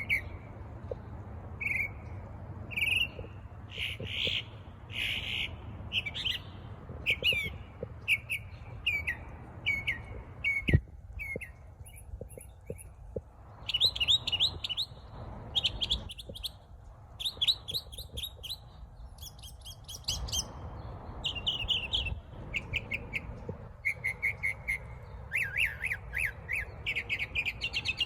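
A bird singing: a run of short, clear chirps and gliding whistled notes, breaking into quick trains of rising notes in the second half. A single sharp knock sounds about eleven seconds in.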